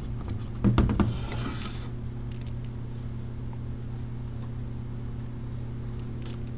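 A few knocks and a short scraping rustle about a second in as a 12-inch car subwoofer is handled and turned over on a table, then only a steady low hum with a couple of faint ticks.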